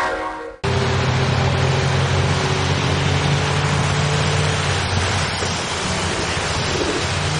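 A train horn fades and cuts off abruptly about half a second in. Then a steady hiss of rain and tyres on a wet road follows, with the low hum of cars going by that fades after a few seconds.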